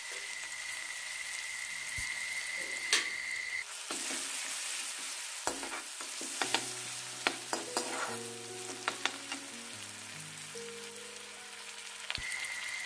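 Smashed garlic and fenugreek seeds sizzling in hot mustard oil in a kadai. From about six seconds in, a steel spoon clinks and scrapes against the pan as it stirs.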